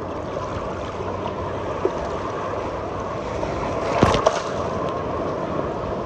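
Sea water washing, a steady rush, with a brief louder burst about four seconds in.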